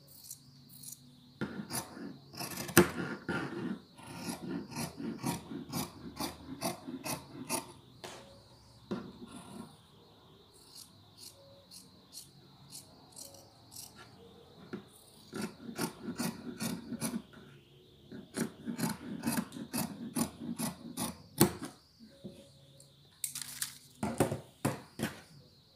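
Sewing scissors cutting through fabric: runs of crisp snips, a few a second, with short pauses between the runs as the blades are repositioned along the cutting line.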